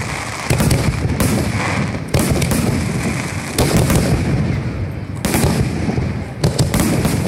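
Aerial fireworks display: many sharp bangs of bursting shells in quick succession, over continuous low booming and crackling.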